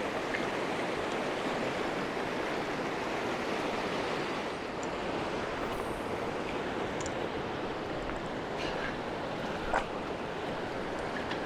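South Platte River water rushing steadily over rocks, a constant even hiss. A single short click stands out a little under ten seconds in.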